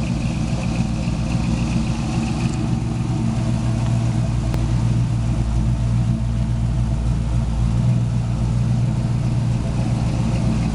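Custom 1937 Chevrolet Humpback sedan's engine idling steadily.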